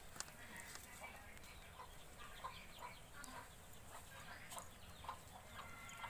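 Faint, scattered short bird calls, chirps and clucks coming every second or so.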